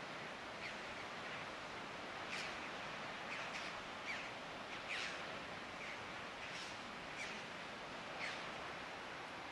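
Small birds calling with short, high chirps that sweep downward, roughly one a second, over a steady outdoor hiss.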